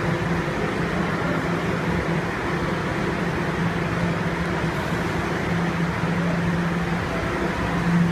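Toronto subway train running, a steady rumble with a constant low hum.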